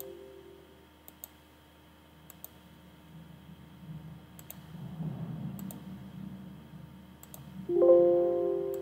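Scattered computer mouse clicks, then a Windows alert chime about three-quarters of a second before the end as a warning dialog pops up: a chord of several tones that dies away. The tail of an identical chime fades at the start, and a soft low rumble runs through the middle.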